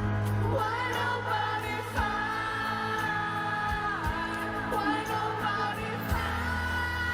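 Live pop concert music: a male vocalist sings over band accompaniment, holding one long note from about two seconds in.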